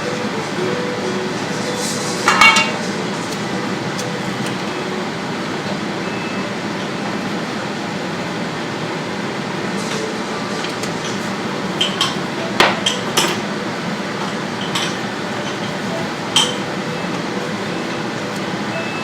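Kitchen utensils and dishes clinking and knocking now and then while food is handled, a cluster of several knocks near the middle, over a steady hiss.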